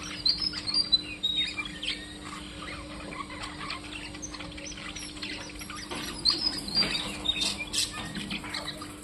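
A bird chirping and calling in short, high notes: a cluster in the first couple of seconds and another from about six seconds in. A steady low hum runs underneath.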